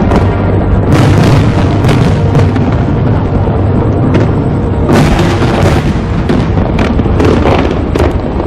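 Fireworks display: aerial shells bursting in a rapid, irregular series of booms over loud music.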